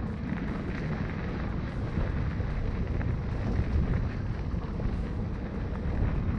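Wind rushing over the microphone with the steady rumble of a Polygon Siskiu D7 mountain bike's tyres rolling over a dirt trail, with faint scattered clicks and rattles.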